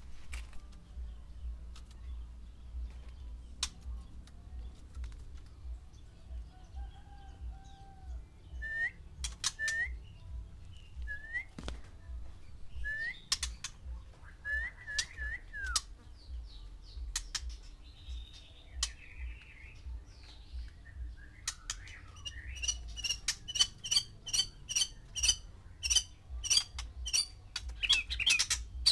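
White-rumped shamas calling: scattered sharp clicks, then a string of short, upward-hooked whistles. In the last several seconds the calls become a fast, even run of clicking notes, about two to three a second.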